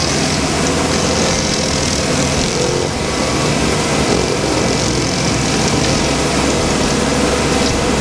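Bandit tracked stump grinder running steadily at high engine speed, its engine noise mixed with the loud, even hiss of the cutter wheel grinding into a stump.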